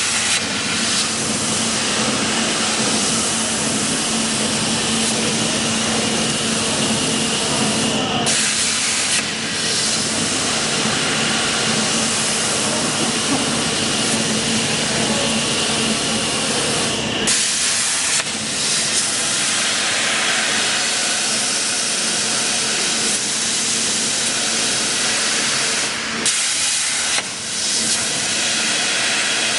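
CNC plasma cutting torch running: a loud, steady hiss of the plasma arc and air jet, with a low hum under it for the first half or so. The hiss breaks or shifts briefly a few times, as between cuts.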